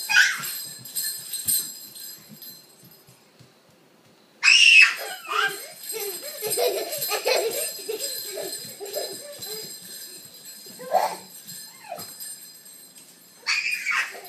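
Toddler's high-pitched little screams of excitement: several separate squeals, the loudest about four and a half seconds in and others near the start and the end.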